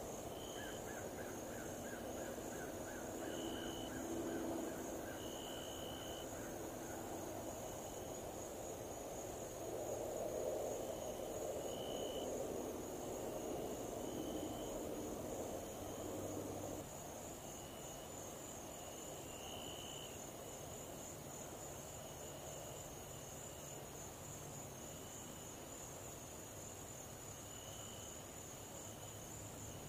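Outdoor ambience: a steady, high-pitched insect chorus with a fast pulse, over short chirping calls every second or two. A low rush underneath drops away about seventeen seconds in.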